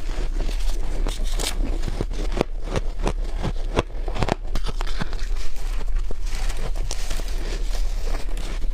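Close-up crunching and crackling of someone biting into soft, squeaky freezer frost, a quick run of crisp crackles with no pauses.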